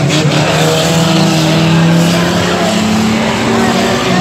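Banger racing cars' engines running hard around the track, several engines at once with pitches that rise and fall against each other, loud and steady throughout.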